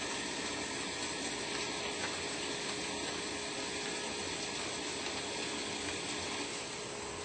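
Haas SL-30 CNC lathe running a cut: a steady mechanical whir with a constant hum and a light rattling.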